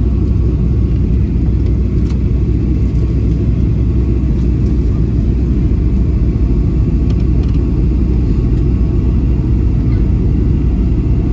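Steady low cabin rumble inside a Boeing 737-800 in flight: its two CFM56 turbofan engines and the airflow over the fuselage, heard from a seat over the wing, with a few faint clicks.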